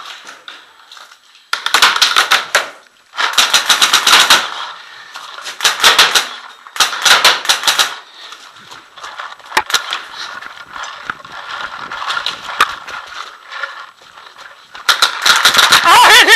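Smart Parts Vibe electronic paintball marker firing rapid strings of shots in about five bursts of roughly a second each, the last near the end, with scattered single shots between them.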